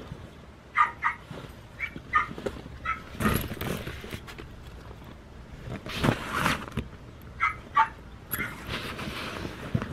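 A dog yipping in short, high barks, often two in quick succession, with spells of rustling in between.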